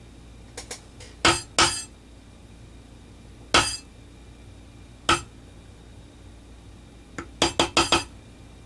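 A mallet striking a metal pear shader stamp into damp leather. A few single knocks come a second or two apart, then a quick run of about six lighter taps near the end. These are clean-up hits that tidy the stamped impression of a paw pad.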